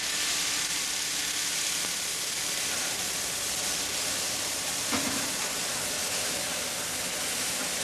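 Steady loud hissing in a ship's boiler room during boiler decoking work, with a single knock about five seconds in.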